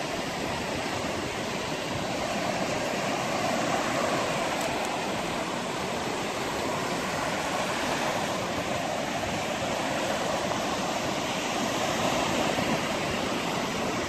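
Sea surf breaking and washing up a sandy shore: a steady rushing wash that swells gently every few seconds.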